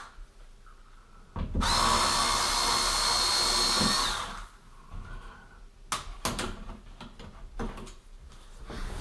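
Electric screwdriver running steadily for about two and a half seconds, backing out a cover-plate screw, followed by a few short clicks and knocks.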